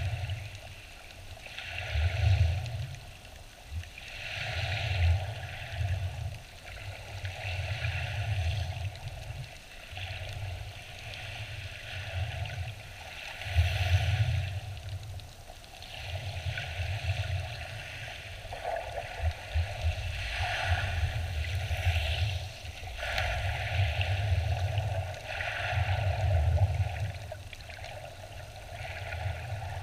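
Shallow sea recorded from underwater: waves surging overhead as muffled, swelling rumbles every two to three seconds, with a hiss of churned water and bubbles over each surge.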